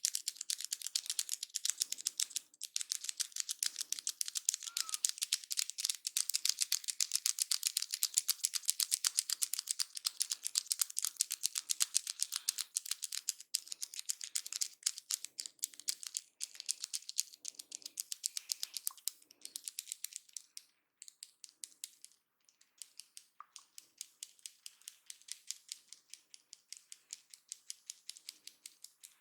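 Fast, steady run of sharp, high clicks, several a second, thinning out and growing quieter after about twenty seconds, over faint soft low thuds.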